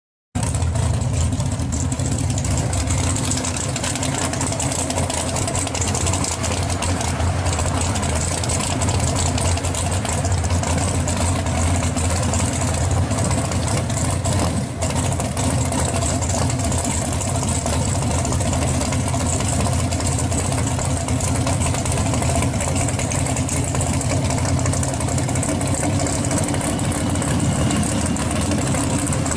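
Pro street 1969 Chevrolet Chevelle's engine idling loud and steady as the car creeps along, cutting in suddenly about half a second in.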